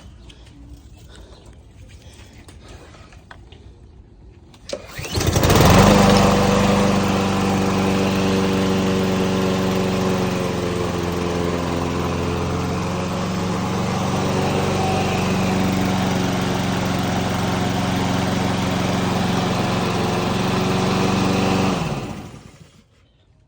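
Craftsman push mower's 160 cc Honda engine pull-started about five seconds in, catching at once and running steadily before being shut off near the end. Its crankcase is filled with two to three times the normal amount of oil, the cause of its smoking.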